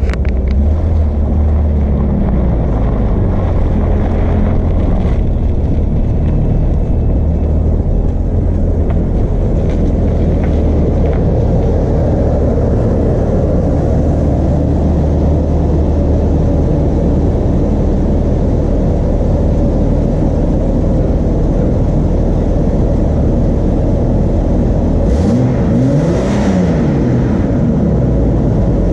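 Car engine running with a steady low rumble; near the end its pitch rises and falls a few times.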